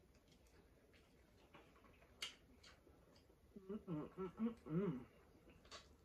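Eating sounds from a woman chewing oxtails and cabbage with rice: a few sharp clicks. About three and a half seconds in comes a short closed-mouth hummed 'mm-mm' that rises and falls over about a second and a half.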